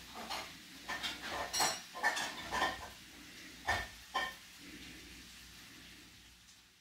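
Cutlery and a ceramic plate being handled on a table: a string of short clinks and knocks, some with a brief ring, two of them about four seconds in. The background fades out near the end.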